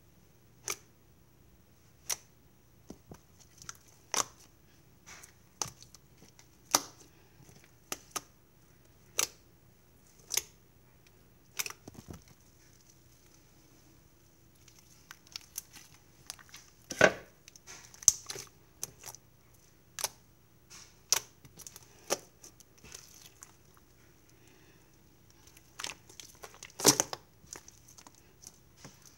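Iceberg slime being poked, stretched and squeezed by hand: scattered sharp sticky pops and crackles, coming more thickly in the second half.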